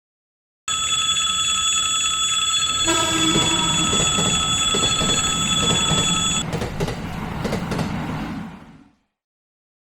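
A train passing: a dense rumble of wheels on rails with a steady high squeal over it. The squeal stops about six seconds in, and the rumble then fades away.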